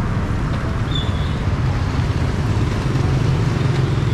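Street traffic: cars and motorbikes driving past on a town road, a steady low rumble.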